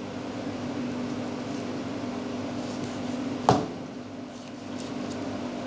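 Steady hum of kitchen ventilation, with one sharp knock on the cutting board about three and a half seconds in while raw meat is trimmed with a knife.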